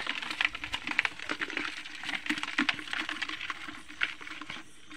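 Rapid, irregular wet clicking and crackling as a hand rummages through shallow water, mud and roots, feeling for a crab.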